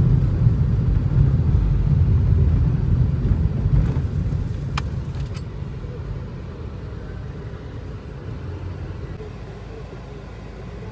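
Low road and engine rumble inside a moving minibus, easing off about four seconds in, with two short clicks about five seconds in.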